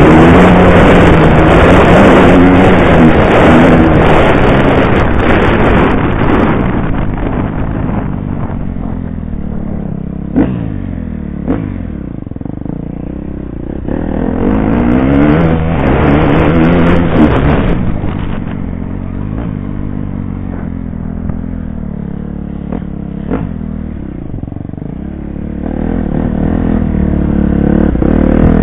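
Off-road dirt bike engine ridden hard, heard from on the rider's helmet: revving up and down through the gears at first, easing off from about seven seconds in, opening up again for a few seconds midway and again near the end. A few sharp knocks come while it is off the throttle.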